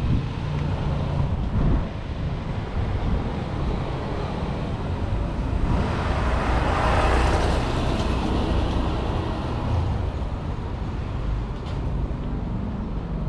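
Street traffic with a steady low rumble, and one vehicle passing close that is loudest about six to eight seconds in.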